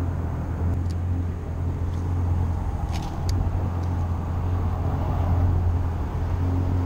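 Boat's outboard motor idling with a steady low hum, a few faint clicks on top.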